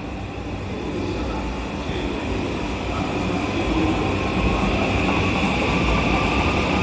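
Electric multiple-unit train accelerating along the platform, its traction motor whine rising slowly in pitch over the rumble of wheels on rail, growing louder as it passes.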